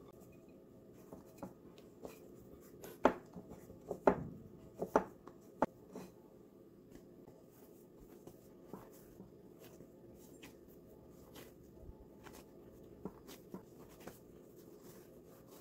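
Hands kneading and rolling glutinous rice dough on a wooden board: soft pats and rubs, with a few sharper knocks about three to six seconds in.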